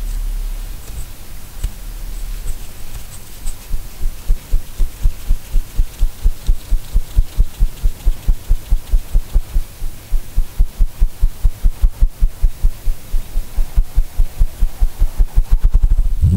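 Button-and-string whirligig toy spinning with a low, rhythmic throbbing whir. It hums steadily at first, then settles into about three pulses a second that quicken near the end.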